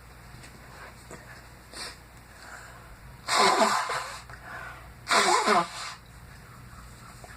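A person sneezing twice, the sneezes about two seconds apart. Each is a loud, sharp burst with a voiced cry in it, part of a sneezing fit.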